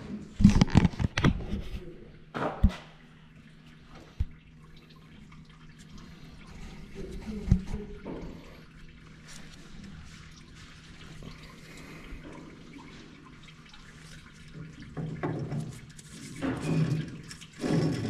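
Sharp metal knocks and clanks of work on the tractor engine, then rusty coolant trickling and dripping out of the Case CX90's engine as the old water pump comes loose, with voices near the end.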